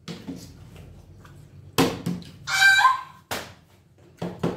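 A partly filled plastic water bottle thunking onto a wooden tabletop several times as it is flipped, with a short high-pitched cry between the knocks.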